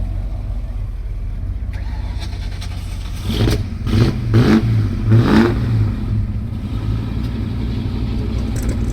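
Big-block V8 car engine idling with a low rumble, blipped in a few quick revs in the middle that rise in pitch and fall back to idle.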